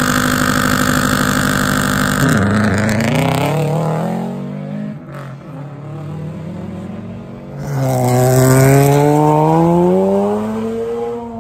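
Rally car engine held at high revs, then let go about two seconds in, climbing in pitch through the revs as it accelerates away and fades. About eight seconds in a rally car engine comes up loud again, its pitch rising steadily as it accelerates.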